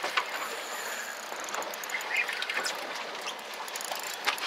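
Spinning reel worked against a hooked fish: scattered faint clicks over a steady hiss of wind and water.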